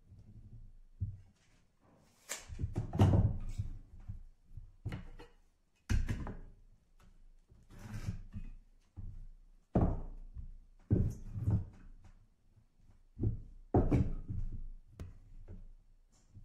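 Irregular thunks and knocks of wooden boards and a metal square being set down and shifted on a table while lines are marked in pencil, with light scraping between the knocks.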